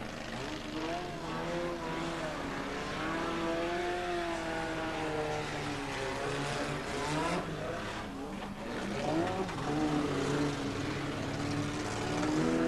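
Engines of several old road cars running on a track at once, revving up and down, their pitches overlapping and rising and falling.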